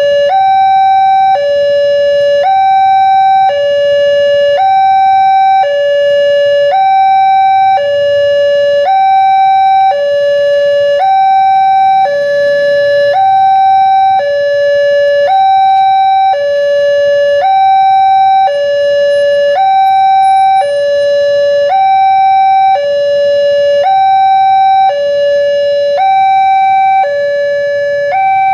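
Railway level-crossing warning siren sounding a loud two-tone hi-lo alarm. The tones alternate evenly, each held about a second, and the pattern repeats without a break. It is the warning that sounds while the crossing barriers are down for a train.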